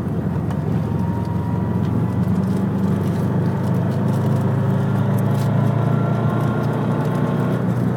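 Subaru WRX STI's turbocharged flat-four engine running steadily and slowly getting a little louder, with faint sharp ticks scattered through it. The owner reports a knocking from the front of this engine above 3,000 rpm.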